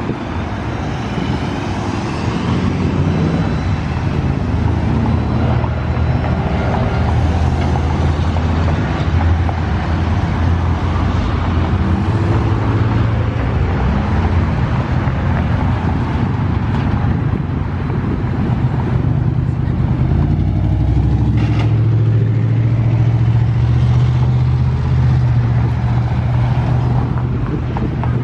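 Flatbed tow truck's engine running with its hydraulics working as the tilted rollback bed, carrying a wrecked SUV, is drawn back and lowered level. It is a steady low hum that shifts in pitch a few times.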